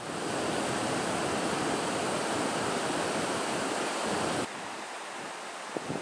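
Rushing water: a steady, full hiss that drops suddenly to a quieter rush about four and a half seconds in.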